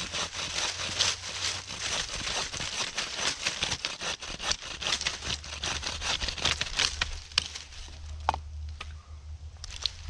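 Dry twigs and brush crackling and snapping as they are handled, a dense run of small cracks for most of the time, thinning to a few separate snaps near the end.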